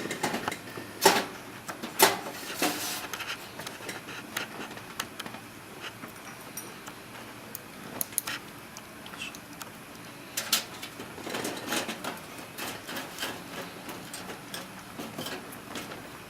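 Scattered clicks and knocks of hardware being handled as a hard disk drive is fitted into a desktop computer case. The sharpest knocks come about a second and two seconds in and again about ten seconds in, with small rattles between.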